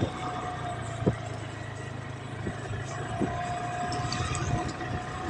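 Motorcycle engine running steadily on the move, with a few short sharp knocks, one about a second in and another about three seconds in.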